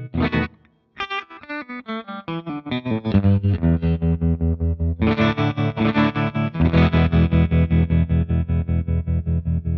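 Gretsch 6120 electric guitar through a Marshall amp and a Catalinbread Valcoder tremolo pedal, the notes chopped into a fast, even pulsing by the tremolo. The playing breaks off briefly about half a second in, then resumes with notes and chords that keep pulsing.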